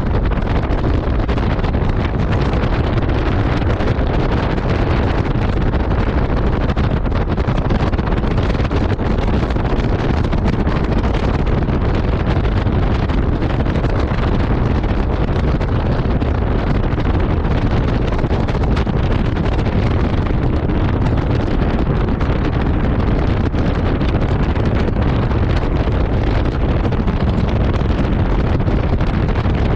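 Steady, loud rush of swollen floodwater, unchanging throughout, with a low rumble of wind on the microphone.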